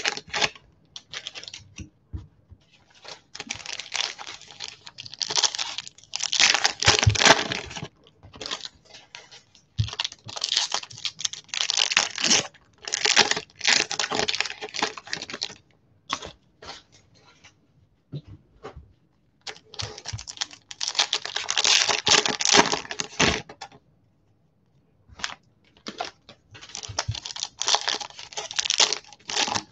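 Foil wrappers of football trading card packs being torn open and crinkled in the hands, in crackling spells a few seconds long with short pauses between.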